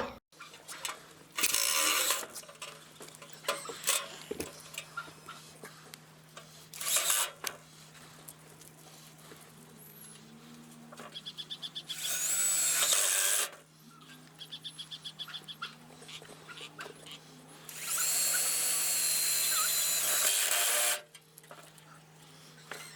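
Power drill driving self-tapping screws into sheet metal in several short runs, the longest about three seconds near the end, with rapid ticking between runs.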